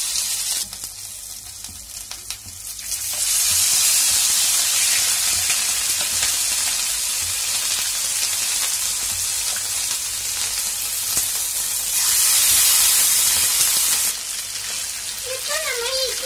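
Pieces of steamed idli deep-frying in hot oil, the oil sizzling and bubbling steadily around them; the sizzle grows louder about three seconds in as more pieces go into the pan.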